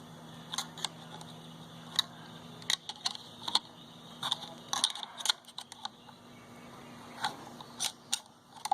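Scattered light metallic clicks and taps of a screwdriver prying the retaining circlip out of a motorcycle clutch, over a faint steady hum.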